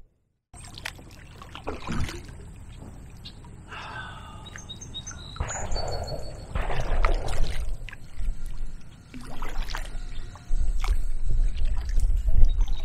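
Kayak paddle strokes splashing and dripping, with songbirds chirping and wind rumbling on the microphone near the end. A few sharp distant reports cut through: shotgun fire from the skeet range beside the launch.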